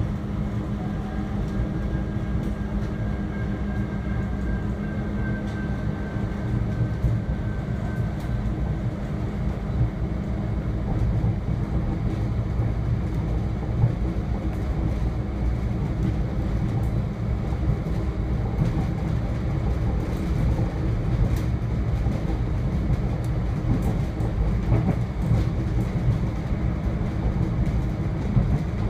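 Cabin sound of a diesel railcar running between stations: a steady low rumble of engine and wheels on the track. A faint high steady tone sits over it for the first several seconds.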